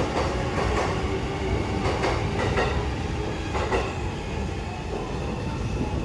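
Commuter train running through the station: a steady rumble with several clanks of the wheels over the rails.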